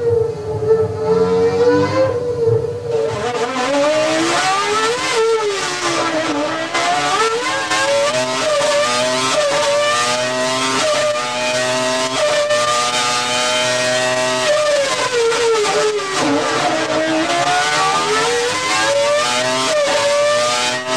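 Renault Formula One racing engine running at high revs. Its pitch drops and climbs back up twice, about five seconds in and again about fifteen seconds in, with small steps in between.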